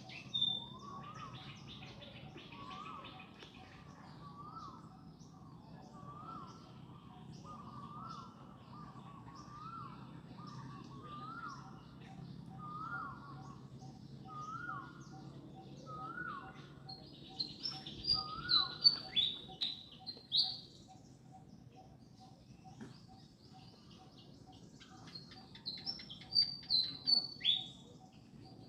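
Birds calling: one gives a short rising-and-falling call about once a second for the first two-thirds, while louder high, sharp chirps come in two spells, about 17 seconds in and again near the end. A faint regular ticking and a low steady hum run underneath.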